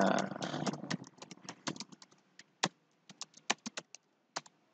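Computer keyboard typing: a dozen or so short, sharp key clicks at uneven spacing.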